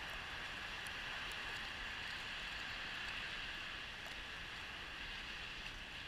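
Steady outdoor background hiss with no distinct event: wind and distant traffic noise.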